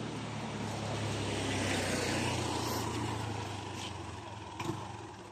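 Motor scooter riding past, its small engine running steadily, growing louder to a peak about two seconds in and then fading as it rides away.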